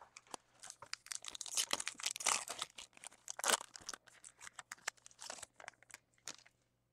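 Trading card pack wrapper being torn open and crinkled by hand: a dense run of irregular crackles and rips, loudest in the middle.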